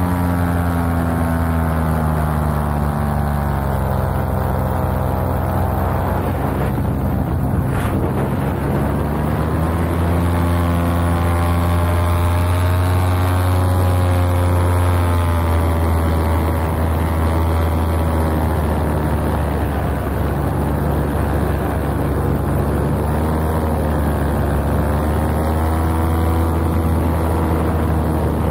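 Paramotor's engine and propeller running steadily in flight, the engine note slowly sinking and rising several times.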